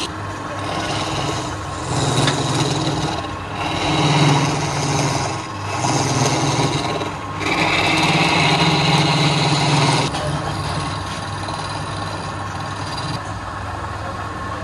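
Wood lathe motor running steadily while a hand-held chisel cuts into the spinning wood, hollowing its end. The cutting comes in several rough bouts of a second or two each, then stops about ten seconds in, leaving the lathe humming.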